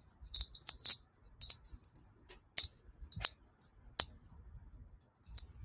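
Copper pennies clinking and jingling in short, irregular bursts as a handful is gathered and sorted by hand, with a few single sharp clicks of coins set down.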